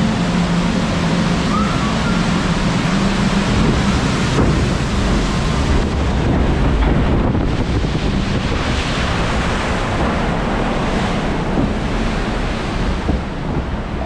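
Water rushing and splashing around a log flume boat as it floats along the channel, a steady wash of noise, with a low hum under it for the first few seconds.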